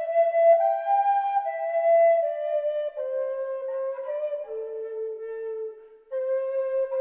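Solo wind instrument playing a slow melody of held notes that steps gently downward, with a short break for breath about six seconds in.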